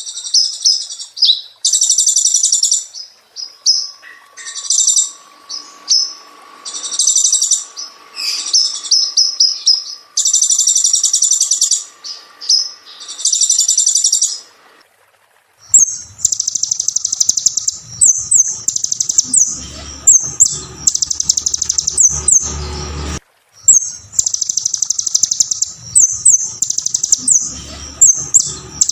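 Kolibri ninja sunbird singing a loud, high-pitched song of rapid twittering phrases. For about the first half the phrases come as separate bursts of a second or so; after a short pause the song runs almost without a break, over a faint low hum.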